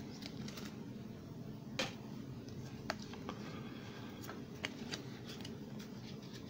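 Pokémon trading cards being handled and flipped through one by one: a few short, soft card clicks and snaps over a low steady room hum, the loudest nearly two seconds in.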